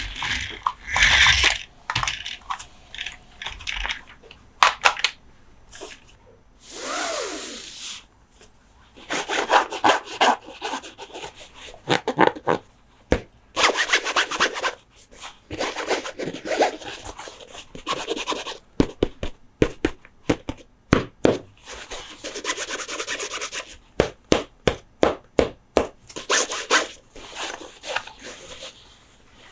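Close-up handling of diecast toy monster trucks: stretches of scratching and rubbing on their hard surfaces, broken up by many sharp clicks and taps, with a short gliding whir about a third of the way in.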